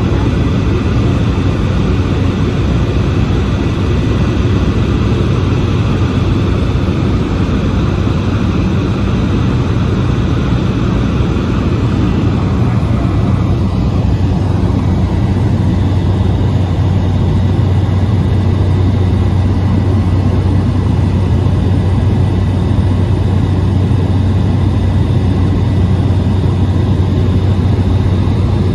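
Cabin noise of a Cessna 208 Caravan in flight, heard from the rearmost seat: the single Pratt & Whitney PT6A turboprop's steady drone, with a strong low propeller hum under rushing air. The higher hiss eases somewhat about halfway through.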